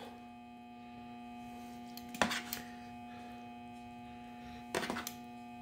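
Steady electrical hum, with two short clatters about two and five seconds in as grilled pineapple is put onto a plate of rice and chicken.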